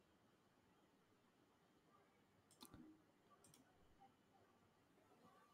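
Near silence, broken by two faint computer mouse clicks a little under a second apart near the middle.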